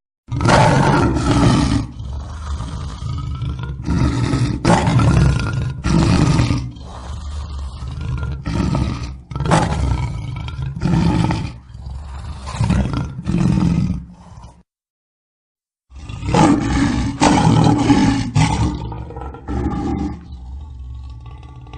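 Lion roaring: a series of deep roars and grunts, each about a second long. The series breaks off for just over a second of dead silence about two-thirds of the way in. A second bout of roars follows and tapers off into quieter grunts near the end.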